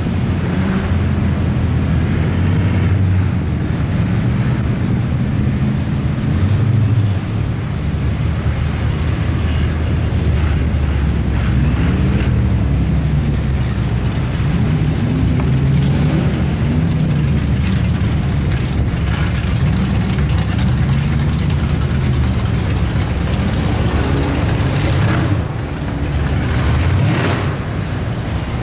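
Off-road vehicle engine heard from inside the cab, its revs rising and falling again and again as it crawls a rutted dirt trail, over a steady rumble of driving noise.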